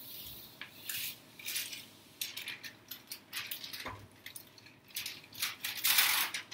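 Crinkling and rustling of a fused plastic-bag sheet and greaseproof paper being handled, with a single knock about four seconds in and the loudest rustle near the end.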